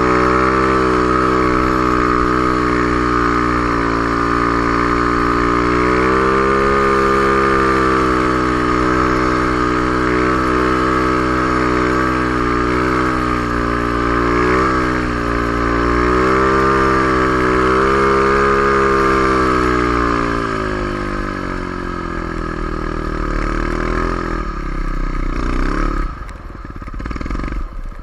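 Snow bike (a dirt bike fitted with a track-and-ski kit) running at high revs through deep snow, its pitch wavering with the throttle. About twenty seconds in it eases off and the pitch drops, and the engine sound fades near the end.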